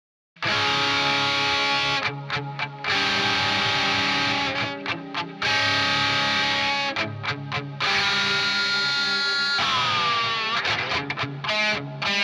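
Heavy instrumental rock music on distorted electric guitar: long ringing power chords broken by short staccato stops, with a pitch dive near the end.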